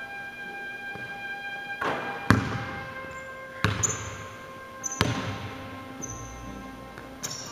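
A basketball bouncing on a hardwood gym floor, about five sharp, irregularly spaced bounces with a short echo after each, the loudest a little over two seconds in. Soft background music with held notes plays underneath.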